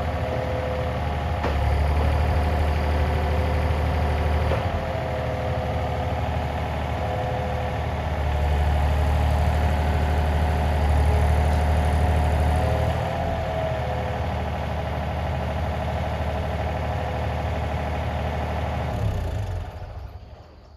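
Yanmar ViO35-6A mini excavator's diesel engine running, growing louder for a few seconds twice as it works, then shut off near the end and running down to quiet.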